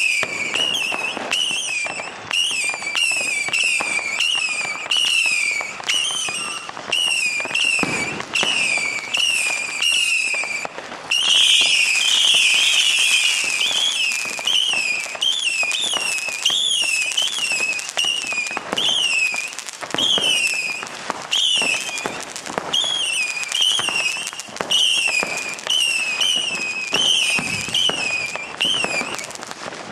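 Fireworks going off: a steady string of short whistles, each dropping in pitch, about three every two seconds, over crackling and bangs. The whistles and bangs come thickest about eleven seconds in and stop just before the end.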